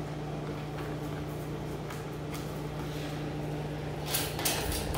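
A steady low hum, like a running appliance or ventilation, with a few soft scuffs and rustles near the end.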